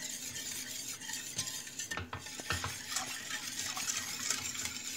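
Wire whisk beating milk pudding as it cooks in a stainless steel pot: a steady swishing, with a few light clicks of the whisk against the pot.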